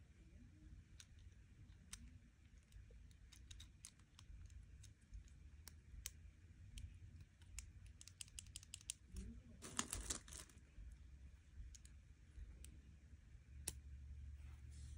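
Faint, scattered clicks of plastic Lego Technic pieces being handled, with a quick run of clicks and a brief rustle about two-thirds of the way through.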